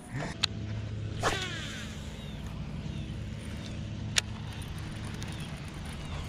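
A baitcasting rod cast: a swish about a second in as the line goes out, followed by a steady low hum with a couple of light clicks from the reel.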